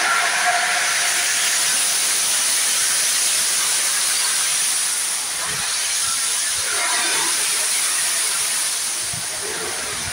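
Steam hissing steadily from LNER A4 Pacific steam locomotive 60007 as it pulls its train away, a loud even hiss that eases slightly about halfway through.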